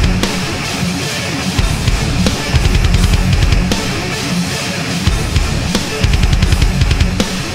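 Drum kit playing a fast progressive-metal groove: quick runs of kick-drum notes broken by short gaps, under cymbal and snare hits.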